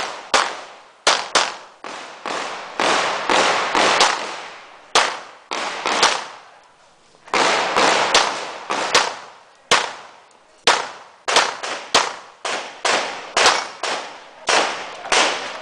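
CZ 75 SP-01 pistol being fired rapidly, the shots mostly in quick pairs, each with a short echoing tail. There is a gap of over a second about seven seconds in, before the firing resumes.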